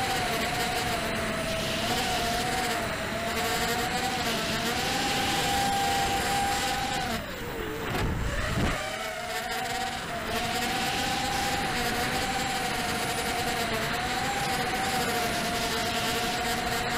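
ZMR quadcopter's brushless motors and propellers whining steadily, heard through the onboard camera, the pitch wavering with throttle. About seven seconds in the whine dives sharply as the throttle drops, with a short low rushing noise, then climbs back to its former pitch about two seconds later.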